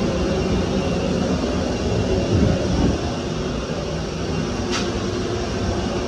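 Steady hum and rumble of aircraft and ground equipment running on an airport apron, with one short sharp click about five seconds in.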